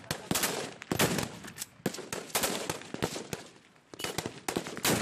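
Small-arms gunfire in a firefight: irregular single shots and quick runs of shots, each with an echoing tail, easing into a brief lull a little past halfway before the shots pick up again.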